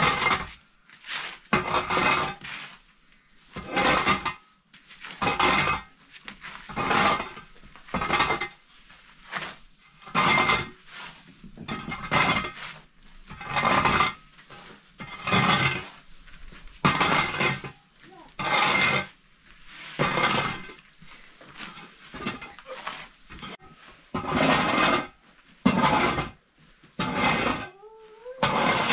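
Rhythmic clattering of pots and dishes, with a stroke about every one and a half seconds.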